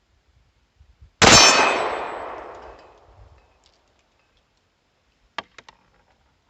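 A single loud shot from a SCCY DVG-1 9mm pistol, a sharp crack followed by a metallic ring that dies away over about two seconds. About four seconds in come three light clicks.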